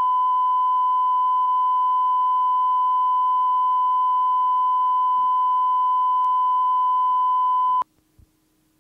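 Steady, loud, pure test tone on a duplicated VHS tape, cutting off suddenly near the end to near silence with faint hiss and a single small click.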